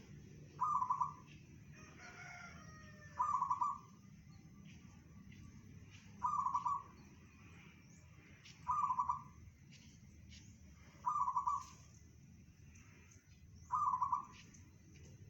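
Zebra dove (perkutut) cooing its rapid, pulsed song, a short phrase repeated six times at even intervals of about two and a half seconds, in the voice that fanciers call 'bedah karang'.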